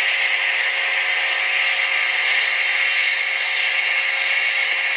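Diesel locomotive engine sound of a GE AC4400CW, played by a ZIMO MX645 sound decoder through a small 28 mm speaker in an HO-scale model running at low speed. It runs steadily, mostly a thin hiss with a faint steady hum underneath.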